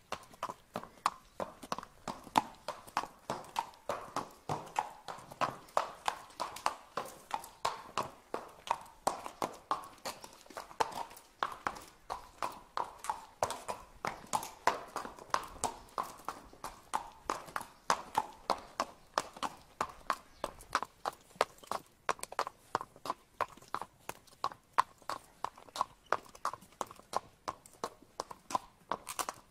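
Draught horses' hooves clip-clopping at a walk on a paved street: a steady run of sharp clops, about four a second, from a team of several horses.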